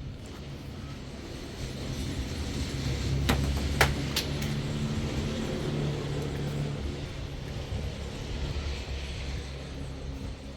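A motor vehicle's engine running, growing louder over the first few seconds and then slowly fading. Two sharp clicks come about half a second apart, about three seconds in.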